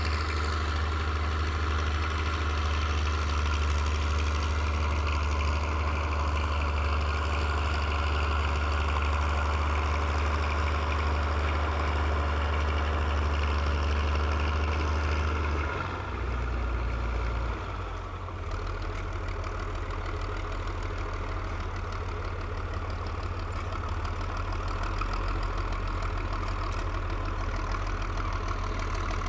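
Engine of a grader levelling farmland, running steadily. About sixteen seconds in it drops a little in level and shifts to a lower, rougher note, then runs on.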